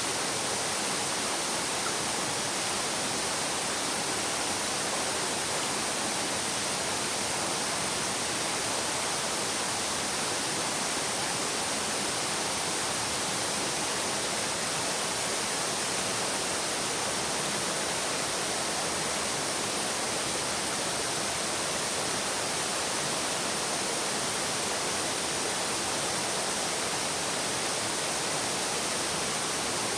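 Stream babbling: a steady, even rush of flowing water without pauses or changes.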